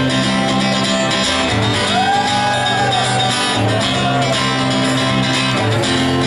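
Live rock band playing an instrumental song intro, guitar over sustained bass chords, with a short melody line that rises and falls twice in the middle.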